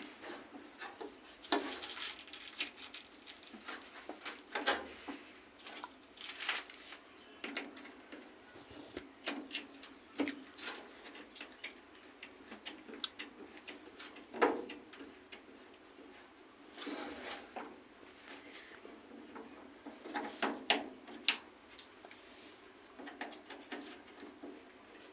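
Scattered, irregular clicks, taps and knocks, as of parts and tools being handled.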